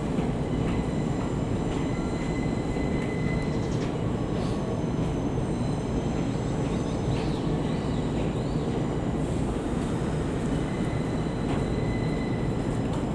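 A 681 series electric multiple unit train moving through the station with a steady rumble, joined by faint, brief high squeals about halfway through.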